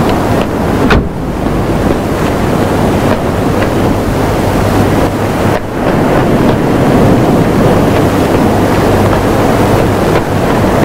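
Loud, steady rush of sea surf and wind.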